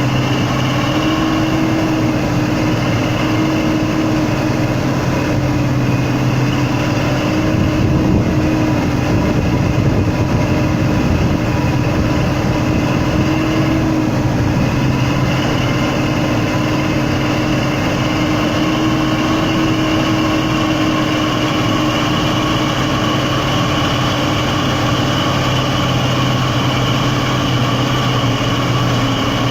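Logging truck engine running steadily at a near-constant pitch. For several seconds about a quarter of the way in, the sound turns rougher and a little louder.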